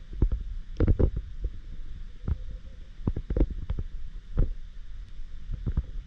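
Underwater sound picked up by a submerged camera: a steady low rumble of moving water with irregular clicks and knocks.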